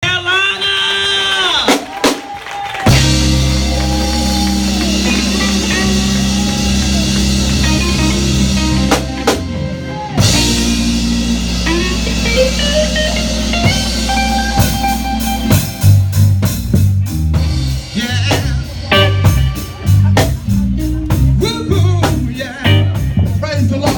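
Gospel band music. A voice slides through a short phrase at the start, then steady low chords hold for several seconds, and a drum kit beat with guitar comes in about fifteen seconds in.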